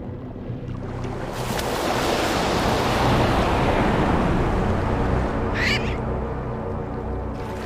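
Background music with a rushing swell of water noise that builds and fades over a few seconds, and a brief high seabird cry near the end.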